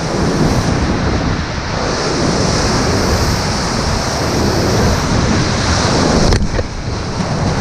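Whitewater rapid rushing and crashing around a raft, with wind buffeting the microphone. A sharp knock comes about six seconds in.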